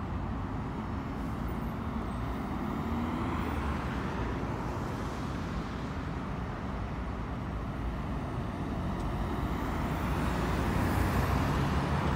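Road traffic at a city crossroads: cars and buses running and passing in a steady rumble of engines and tyres, growing a little louder near the end as vehicles pass close by.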